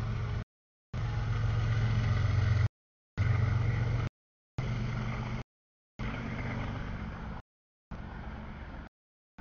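CSX auto-rack freight train passing. A diesel locomotive's low engine hum is loudest in the first half and gives way to the steady rolling noise of the auto-rack cars. The sound drops out completely for about half a second, roughly once a second.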